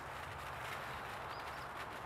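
Steady outdoor background noise, with two faint high chirps about one and a half seconds in.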